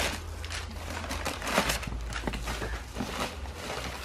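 Crumpled packing paper and tissue paper rustling and crinkling as a wrapped dish is pulled from a cardboard box and unwrapped, with uneven crackles.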